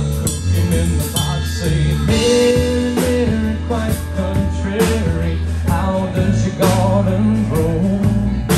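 Live band playing: electric guitars, electric bass and drum kit, with steady drum and cymbal hits.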